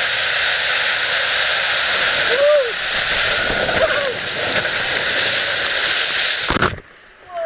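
Steady rush of water as an inner tube slides down an enclosed water-slide tube, with two brief whoops from a rider about a third and halfway through. Near the end a sudden loud burst, then the sound drops off abruptly.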